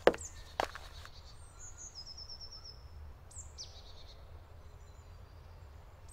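Forest birds singing: short high chirps and a quick rapid trill, over a low steady rumble. There are two sharp knocks in the first second.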